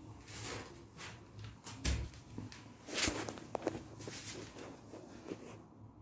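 Footsteps with irregular rustling and clicking from a handheld phone being carried and handled while walking, with a dull thump about two seconds in and a cluster of sharper clicks about three seconds in.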